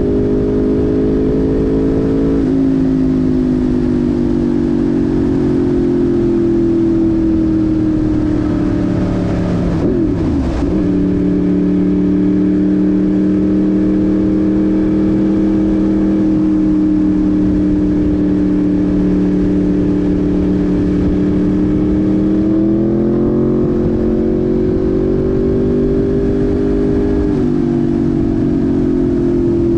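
Yamaha YZF R1 inline-four engine running under way at steady revs, with a few sudden drops in pitch as it shifts up and a short rise in revs a little over twenty seconds in.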